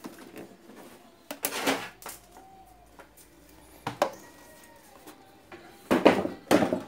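Knocks and scrapes of a small plastic CRT television cabinet being handled and tipped over, with sharp knocks about one and a half and four seconds in and a louder cluster near the end.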